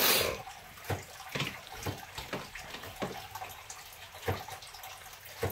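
Water running from a kitchen tap into a sink, with a louder gush at the start and scattered short knocks and clinks of dishes or utensils.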